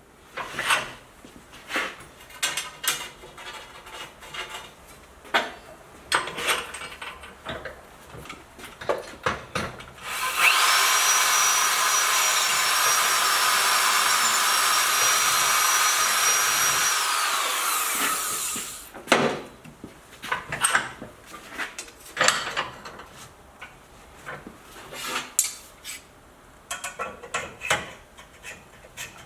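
A small power tool runs steadily with a high whine for about eight seconds, about a third of the way in, deburring the pin holes of hand-forged steel hinges. Before and after it come scattered clicks and scraping of the metal hinge parts being handled.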